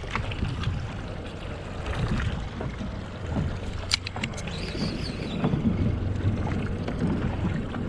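Wind buffeting the microphone and water moving against a small boat, a steady low rumble. About four seconds in come a few sharp clicks and a brief faint whir from a spinning reel being worked while slow-jigging.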